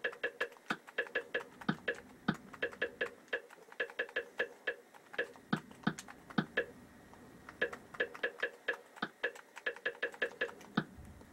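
Rapid, irregular clicking of TV remote-control buttons, pressed in quick runs to step the cursor across an on-screen keyboard, with a short pause a little past the middle.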